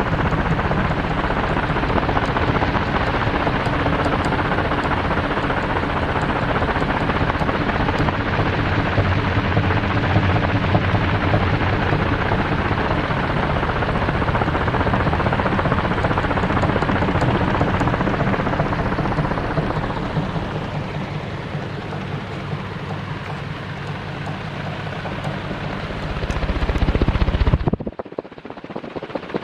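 48-inch CMC industrial ceiling fan running: a steady rush of moving air over a low motor hum. The air noise eases about two-thirds of the way through, then swells and cuts off abruptly near the end.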